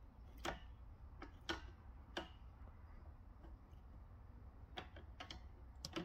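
Monk parakeet bathing in a shallow plastic tub: faint, short, sharp splashes and taps, about seven of them spaced irregularly.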